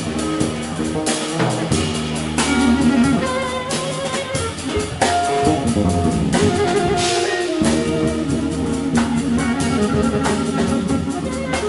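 Live jazz-rock band playing: drum kit and electric guitar to the fore over bass, with held melody notes around the middle.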